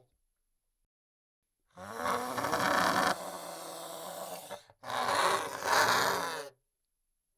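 Monster sound effect: two throaty creature vocalisations, the first about three seconds long and loudest at its start, the second shorter and following right after it.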